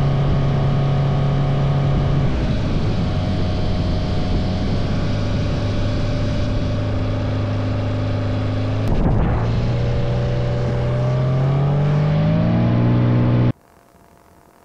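Kitfox light aircraft's piston engine and propeller running steadily. The engine note drops about two seconds in, then rises over several seconds near the end as engine speed comes up. The sound cuts out abruptly just before the end.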